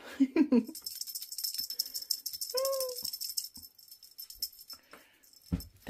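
A toy rattle shaken rapidly for about four seconds, a high, fast rattling. About two and a half seconds in, a kitten gives one short meow, and there is a soft thump near the end.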